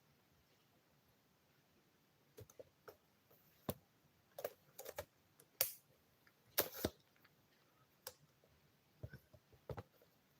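Scattered, irregular clicks and taps, starting about two seconds in after a quiet stretch, with a few louder ones near the middle.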